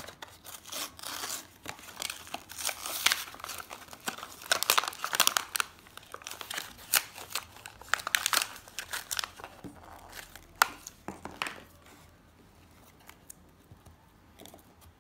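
Brown paper packet crinkling and tearing as it is ripped open by hand and the rolls of washi tape are pulled out. The rustling dies down about twelve seconds in, leaving only a few light clicks.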